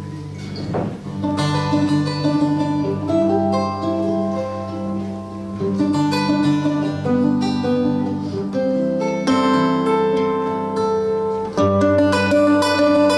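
Solo acoustic plucked string instrument, a pear-shaped mandola-type guitar, playing a slow picked melody over ringing low notes, with a louder new phrase near the end.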